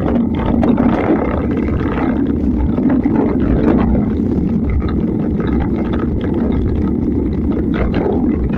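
Wind buffeting the camera's microphone as a mountain bike rides a rough dirt track at about 20 km/h, a steady low rushing noise, with the bike's tyres and frame rattling over the bumps in frequent small knocks.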